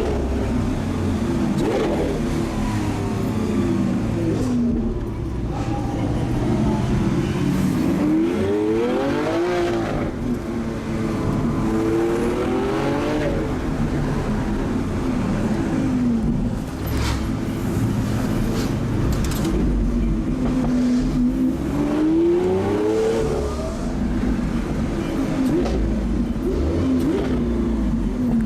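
Lamborghini Aventador's naturally aspirated V12 engine accelerating in several rising sweeps, dropping back in pitch between them, with a few sharp exhaust pops in the middle.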